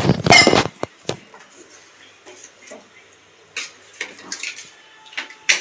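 Kitchen pots and utensils clattering: a loud clatter in the first second, then scattered light clinks and knocks.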